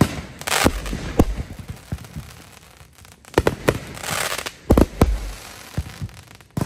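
Consumer aerial fireworks going off: a string of sharp bangs as shells launch and burst, bunched at the start and again from about three and a half to five seconds in, with crackling hiss between the bangs.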